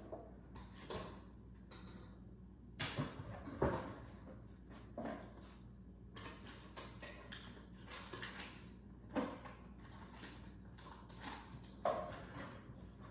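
Irregular light knocks and clicks, a few seconds apart and uneven, over a low steady hum. The two loudest knocks come a little before the middle and near the end.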